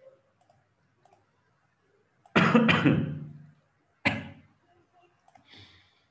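A person coughing: a quick double cough about two seconds in, then one more cough about a second later.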